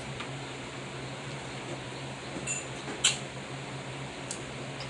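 Eating sounds from picking and eating snow crab legs: a few short, sharp clicks and cracks, the loudest about three seconds in, over a steady low hum.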